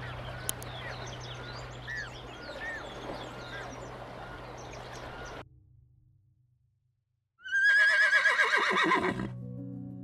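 Emperor penguins give short high chirps over a steady hiss for about five seconds, then the sound fades to silence. A horse then whinnies once, loudly, for about two seconds, its pitch falling away at the end. Soft background music follows right after the whinny.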